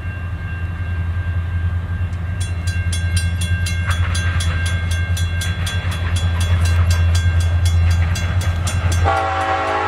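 Norfolk Southern freight train passing, its diesel locomotive rumbling low and steady, with a bell ringing rapidly from about two and a half seconds in. About nine seconds in, the locomotive's air horn starts sounding, loud.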